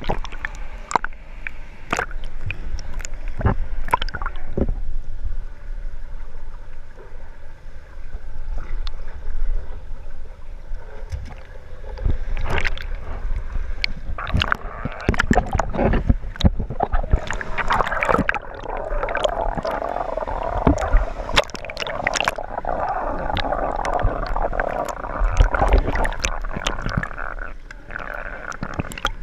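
Muffled pool water heard through a camera's waterproof housing as it is dipped in and out: water sloshing and gurgling, with many sharp clicks and knocks against the housing and a low rumble.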